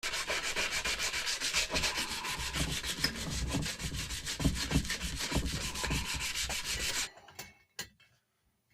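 Rapid abrasive rubbing, like sanding, with quick even strokes that stop abruptly about seven seconds in, followed by a few light clicks.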